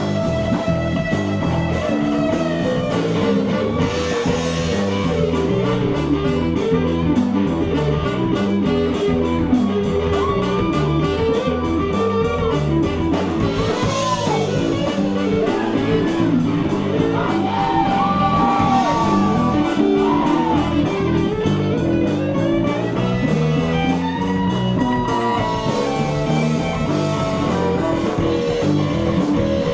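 A live rock and roll band playing, with a strummed hollow-body electric guitar, drums and saxophone. Long held lead notes slide in pitch several times over the steady rhythm.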